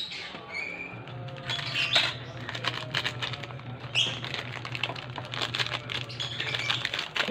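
Plastic Milo sachets crinkling and rustling in the hands as the chocolate malt powder is squeezed out into a bowl, with music playing underneath.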